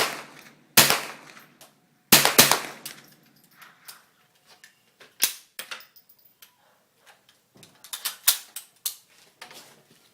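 Gunshots from an AR-15 (Smith & Wesson M&P 15) firing .22 LR through a TargetMaster drop-in conversion kit. Several sharp shots come at uneven intervals: a pair near the start, a lone one about midway after a pause, and a quicker cluster near the end. Quieter clicks and clinks fall between the shots.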